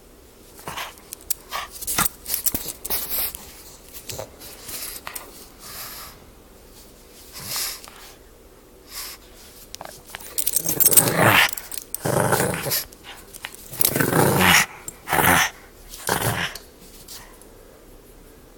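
Pug puppy growling in play while tugging at a plush toy, in a run of about five loud rough bursts in the second half, after quieter, broken sounds in the first half.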